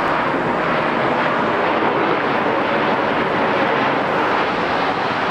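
Jet airplane flying overhead, its engines making a steady noise.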